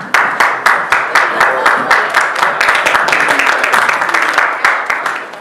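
A room of people applauding, starting suddenly and dying away near the end.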